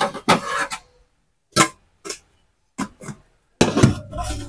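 Kitchenware clattering in a plastic dish rack as an item is pulled out between the plates: several short, separate clinks. Near the end comes a louder cluster of knocks as the metal inner pot is set down into an electric rice cooker.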